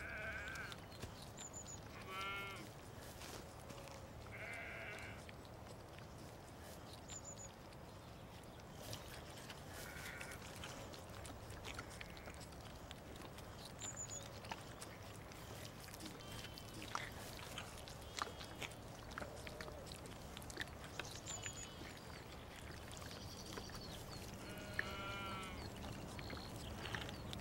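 A lamb bleating about five times, short calls spread across the stretch, between faint wet clicks of it sucking milk from a bottle's rubber teat.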